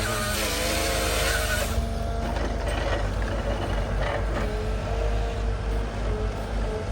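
A heavy diesel dozer working in the woods, its engine running steadily under load with a few held whining tones, and a hiss over the first couple of seconds.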